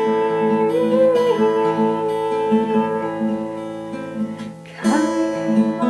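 Acoustic guitar strumming chords under a woman's singing voice, which holds a long wavering note for the first few seconds and starts the next line near the end.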